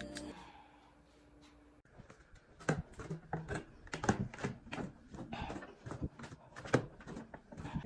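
A run of irregular sharp clicks and knocks, roughly three a second, starting a couple of seconds in, after a trailing bit of music fades out.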